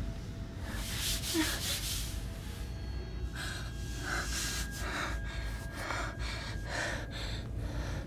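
A frightened woman's heavy, quick breathing and gasps, coming in short rushes about once every 0.7 seconds in the second half, over a low steady drone.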